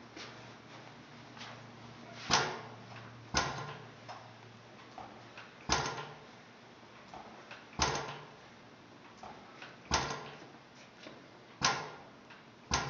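Blaisdell engine-compressor's antique hit-and-miss gas engine running, with a sharp firing bang at uneven intervals of about one to two seconds and fainter clicks between the bangs.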